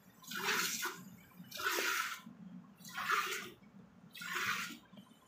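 Cow being milked by hand: streams of milk squirt hissing into a steel bucket already frothy with milk, in four strokes about one every 1.3 seconds.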